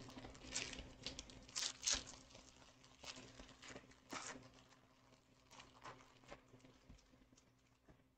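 Faint crinkling and tearing of a Pokémon card pack's wrapper as it is opened, heard as a run of short, irregular rustles. They are busiest in the first two seconds and thin out toward the end.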